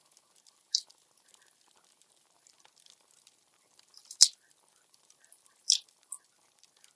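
Wood fire crackling: faint steady ticking with four sharp pops, the loudest about four seconds in.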